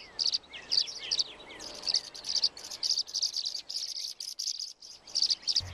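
Small birds chirping rapidly: a steady run of short, high chirps, about five or six a second, with a few falling notes in the first second.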